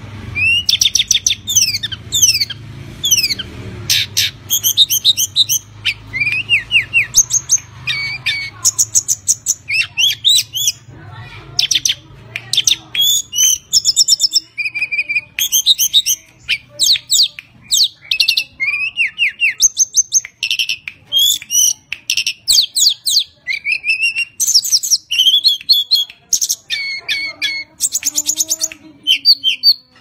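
Tledekan gunung (mountain tledekan) songbird singing non-stop: rapid, varied whistled phrases full of quick rising and falling slurs, broken by only short gaps.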